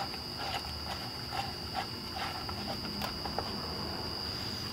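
Soft clicks and light scrapes, about two a second, of a hand driver turning bolts into a framing nail gun's cylinder cap, over a steady high-pitched whine.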